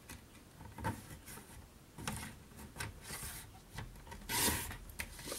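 Stampin' Up! paper trimmer's blade carriage sliding along its rail and cutting through cardstock, in several short strokes about a second apart, the longest near the end.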